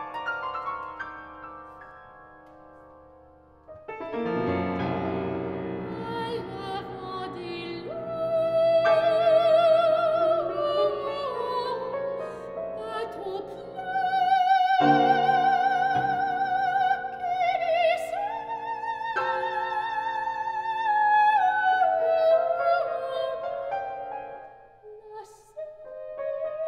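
A woman singing operatically with wide vibrato, accompanied by a Yamaha grand piano, in a contemporary classical art song. Piano notes die away over the first few seconds, the piano comes in loudly about four seconds in, and the voice enters a few seconds later, holding a long high note around the middle.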